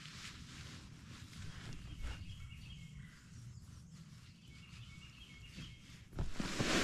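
Faint bird chirps over quiet outdoor ambience, with a louder rustling or handling noise near the end.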